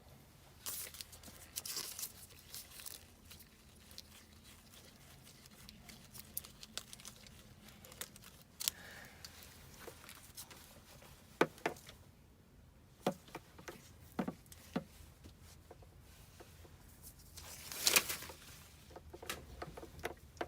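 Rustling and crinkling with scattered sharp clicks and knocks, as of hands handling materials and small parts. The loudest knocks come about eleven, thirteen, fourteen and eighteen seconds in.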